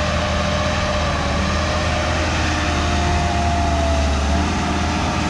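Kobelco SK120 Mark IV hydraulic excavator's diesel engine running steadily under load as it dumps a bucket of soil and swings. A faint hydraulic whine rises a little, then drops about four seconds in.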